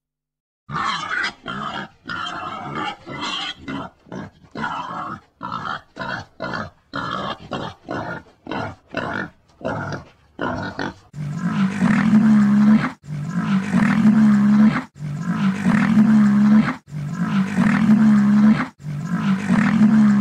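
Animal calls: first a rapid, irregular series of short calls, then from about halfway through a run of five longer, deeper calls at an even pace, each lasting about a second and a half.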